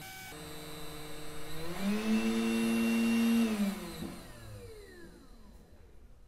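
Ingco 20V cordless heat gun's fan motor whirring at full speed. Its pitch and loudness rise, hold, then wind down and stop about four seconds in as the battery goes flat.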